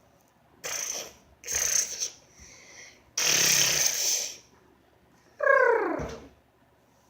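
A person's breathy vocal noises: several hissing bursts of breath, the longest lasting about a second. About five and a half seconds in comes a short voiced sound that falls in pitch.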